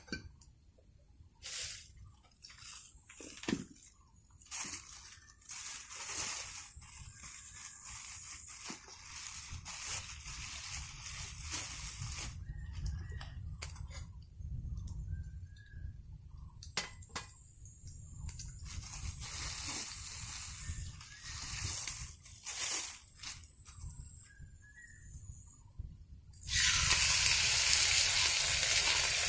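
Scattered knocks and clicks of cookware over a low rumble, then, near the end, a loud steady sizzle starts suddenly as food goes into a hot cast iron pan.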